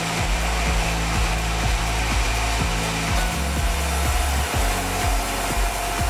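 Large vertical band sawmill running, sawing meranti timber: a steady machine drone with a constant high whine and small recurring ticks.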